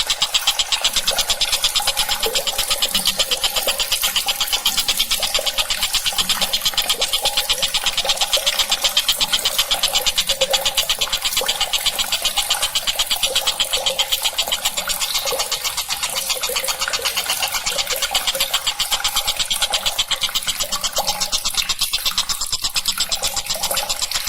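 Tengkek buto kingfisher giving a fast, continuous rattling trill, its notes repeated too quickly to count.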